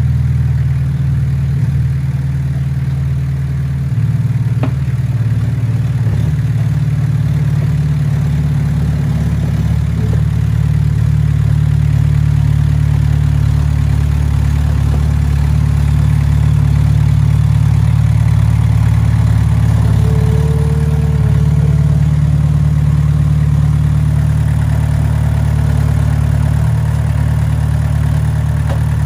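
An engine running steadily at a constant speed, with a few faint clicks and a brief higher squeal about two-thirds of the way through.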